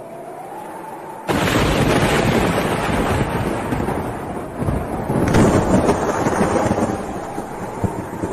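Strong storm wind gusting hard against the microphone: a sudden loud rush of wind noise about a second in, surging again about five seconds in, then easing off near the end.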